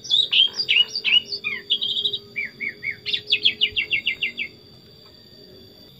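Sooty-headed bulbul singing a phrase of clear, whistled notes that fall in pitch. It ends in a quick run of about ten notes and stops about four and a half seconds in.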